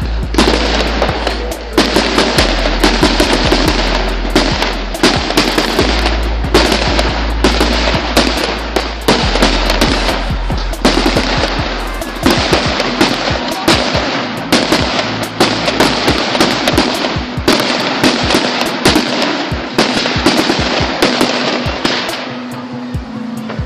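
Fireworks display: a dense barrage of bangs and crackling, many reports a second.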